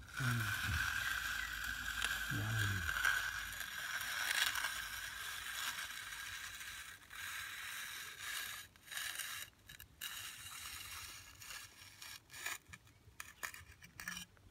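Steel hand edger scraping along the edge of fresh concrete at a construction joint, a gritty hiss of metal on wet cement. It runs steadily for the first several seconds, then breaks into shorter strokes with pauses between them.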